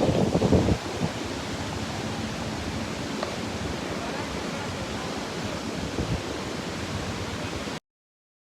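River water rushing steadily, with low wind buffeting on the microphone during the first second; the sound cuts off suddenly near the end.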